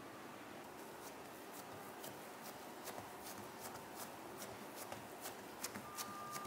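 Fingertips pressing and patting risen bread dough flat on a silicone baking mat: a faint, irregular run of light taps and clicks, several a second, over a steady hiss.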